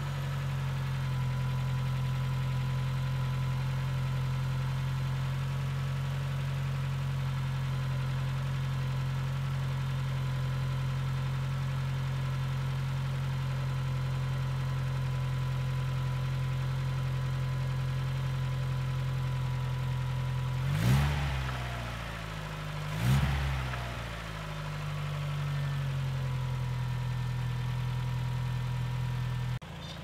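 NA Mazda Miata's inline-four engine idling just after a cold start, running on freshly installed hydraulic lifters, with the lifter tick pretty much gone. Two-thirds of the way through it is revved briefly twice, about two seconds apart, and settles back to a steady idle each time.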